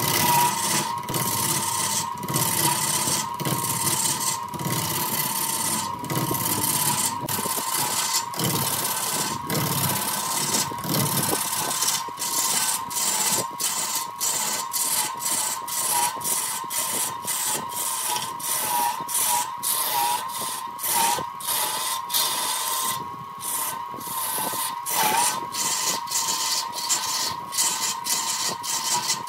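Wood lathe running with a steady whine that dips in pitch now and then, while a turning tool cuts the spinning wood with a hiss that breaks off in short, uneven gaps.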